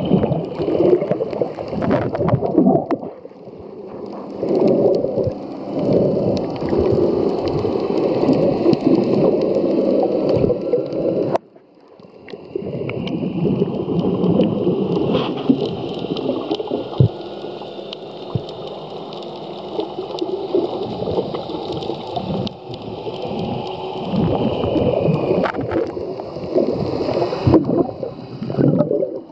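Muffled underwater churning and rushing of water, heard from a camera held below the surface while a snorkeler kicks with fins. It drops away sharply for about half a second about eleven seconds in, then resumes.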